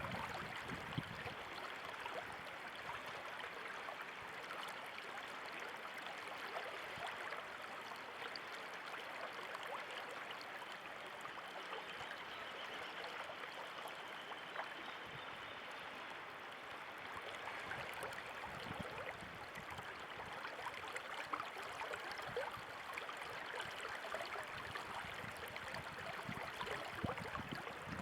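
Running water, a steady rushing and gurgling flow like a stream.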